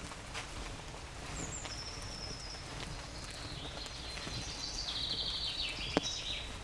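A songbird singing high, trilling phrases in a forest over a steady background hush, with a sharp tick about six seconds in.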